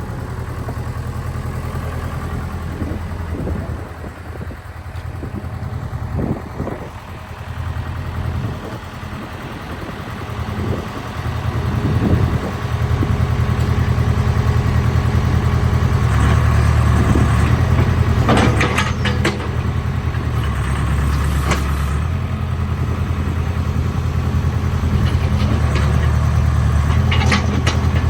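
Case 580 Super K backhoe's Cummins 4BT four-cylinder diesel running, throttled up about twelve seconds in as the machine is worked. A few clusters of knocks come through over the engine, one partway through and one near the end.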